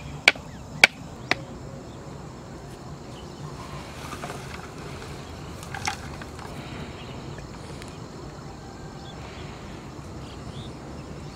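Wooden stake being driven into a canal bed by striking it with a hand-held stone: three sharp knocks in the first second and a half. A faint steady outdoor background follows, with one smaller knock about six seconds in.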